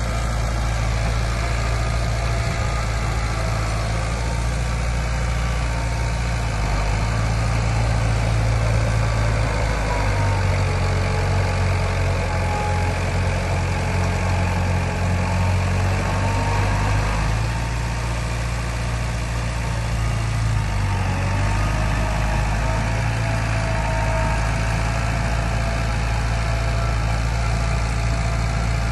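Heavy diesel engine of earthmoving machinery running steadily. Its low drone shifts in pitch several times as the load changes.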